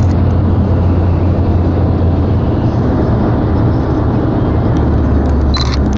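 Steady low rumble of a vehicle under way, heard from inside it, with a brief rattle or click near the end.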